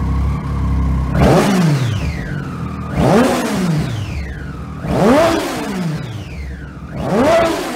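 2009 Triumph Daytona 675's three-cylinder engine, breathing through its original under-seat exhaust, revved in four quick throttle blips about two seconds apart. Each blip climbs sharply in pitch and falls back to idle.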